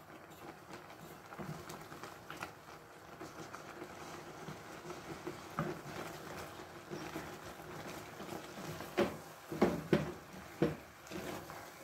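Wooden cooking stick stirring and pressing thick maize-meal dough (ugali) in an aluminium pot: a soft, uneven scraping patter, with a few sharp knocks of the stick against the pot near the end.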